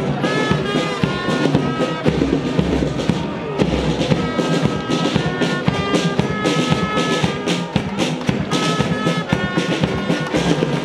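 A marching band of drums beating a brisk, steady march, with a tune of short high held notes over the drumming.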